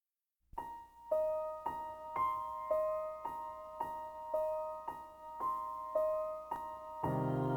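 Music: an electric piano or keyboard plays a repeating figure of single struck notes about two a second, and a fuller, sustained layer comes in near the end.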